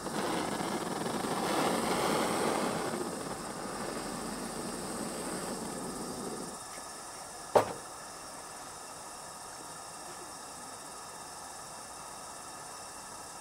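Handheld butane cartridge torch hissing steadily as it burns in new gas-lantern mantles, cutting out about six and a half seconds in. About a second later there is a single sharp knock.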